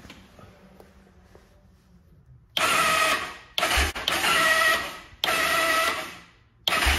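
Electric starter motor of a 1993 Kawasaki Bayou 220 ATV whirring in four bursts of about a second each, starting about two and a half seconds in, as the starter button is pressed. The starter spins without engaging the engine, which the owner puts down to a failed one-way starter clutch.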